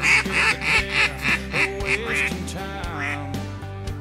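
Mallard duck call blown in a quick series of about nine hen quacks, about four a second and tapering off, then a single quack a second later. Background music with steady notes plays underneath.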